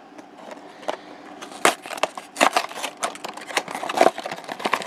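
Cardboard blind box of a Funko mystery mini figure being opened by hand: irregular crackles, taps and rustles of packaging that grow busier after about a second and a half.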